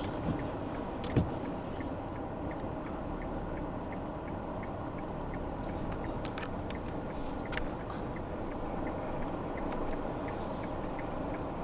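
Steady rumble of a vehicle heard from inside the cabin, with a faint, quick, regular ticking over it and a soft handling bump about a second in.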